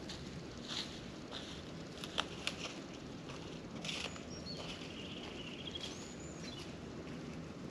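Outdoor woodland ambience with a few sharp crunches or clicks, the loudest two about two seconds in, typical of a hiker's steps on a trail. Midway through, a small songbird calls a few high chirps and a short whistled phrase that rises at the end.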